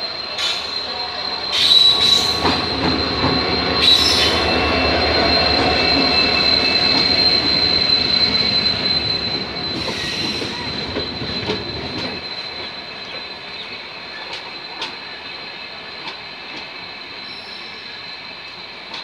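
Express train of LHB coaches rolling into a station, its wheels giving a steady high squeal. The rumble is loudest over the first twelve seconds or so, then eases to a quieter roll with scattered clicks of wheels over rail joints.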